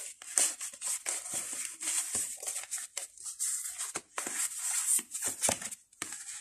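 A deck of oracle cards being shuffled by hand: quick, irregular papery swishes and riffles of card against card.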